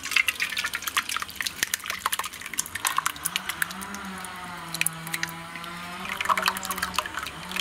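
Thick tamarind extract poured from a steel bowl through a plastic strainer into a metal pot: liquid splashing and dripping in quick, irregular spatters. A low steady hum sounds for a few seconds in the middle.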